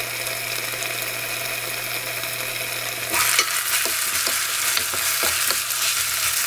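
Garlic scapes in a soy-and-chili sauce sizzling gently in a covered frying pan over very low heat. About three seconds in the sizzle grows louder as the pan is uncovered, and a wooden spoon stirs the scapes with short scraping strokes against the pan.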